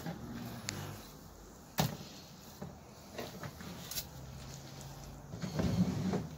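Filleting knife and fish being handled on a cutting board: a few sharp knocks, then busier, louder handling noise near the end, over a low steady hum.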